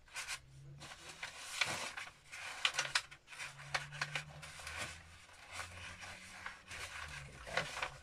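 Stiff, springy recycled coffee-cup paper rustling and crackling irregularly as book pages are folded and tucked in by hand.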